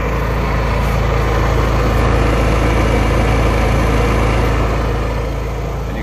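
Honda EU7000iS inverter generator's engine running steadily under load while it powers a 3-ton central-air heat pump, a constant low hum that swells slightly in the middle.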